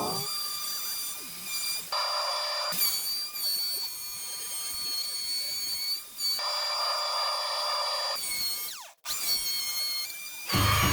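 Wood router running with a steady high whine, its bit cutting a groove in wood in two stretches of about two seconds each. Near the end a louder, deeper sound comes in.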